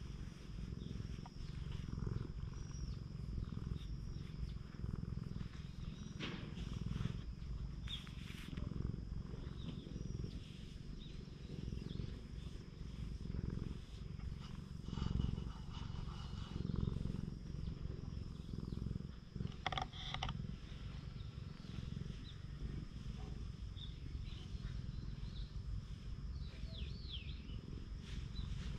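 An orange-and-white cat purring steadily, close up, as it is stroked on a lap. A few brief knocks come through the purr, the clearest about two-thirds of the way in.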